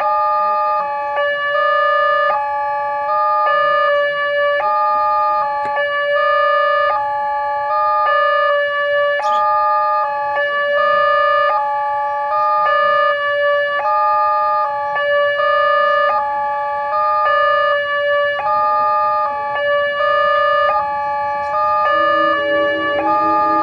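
Railway level-crossing warning alarm sounding an electronic two-tone chime that steps back and forth between a higher and a lower note about once a second. Near the end a second, lower alarm tone starts up alongside it.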